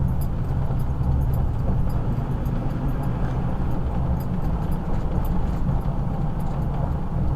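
A truck driving at a steady speed: a constant low engine and road rumble.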